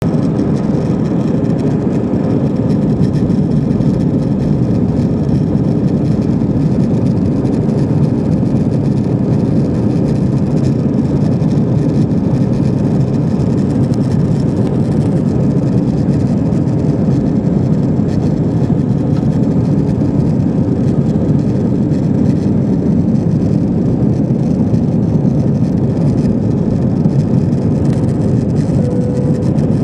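Airbus A320 airliner engine and airflow noise heard from inside the cabin: a steady, loud roar that holds level without rising or falling.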